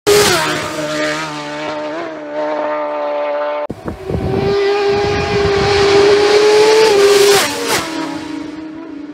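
Superstock racing motorcycle at full throttle on a road course: a high, screaming engine note with brief dips in pitch, as at gear changes. After a break a little under four seconds in, a bike comes through at speed, its note held high and then dropping sharply as it passes about seven and a half seconds in.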